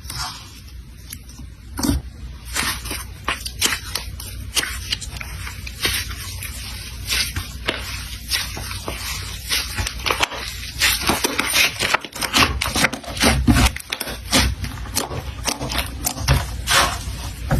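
Slime squeezed and poked by hand, giving a run of quick squishy clicks and pops that come thicker and louder from about eleven seconds in.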